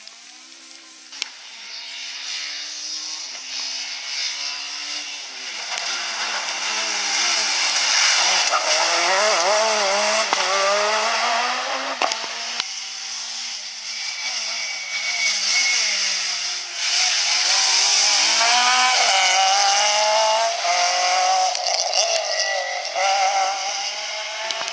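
Rally car engines at full throttle on a stage, revs climbing and dropping again and again with the gear changes, loudest as the cars go past; a few sharp cracks stand out, about a second in and near the middle.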